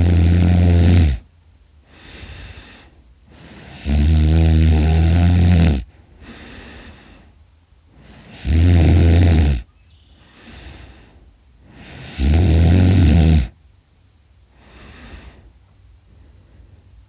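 A man snoring very loud: four long buzzing snores about every four seconds, each followed by a softer breath out. Near the end only quieter breathing.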